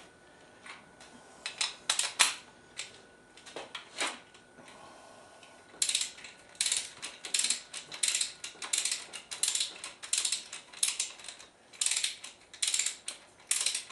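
Hand ratchet clicking as it runs down the connecting-rod cap nuts on a Ford 390 FE V8, snugging them before final torque. A few scattered clicks come first, then from about halfway a steady back-and-forth run of ratcheting strokes, about two a second.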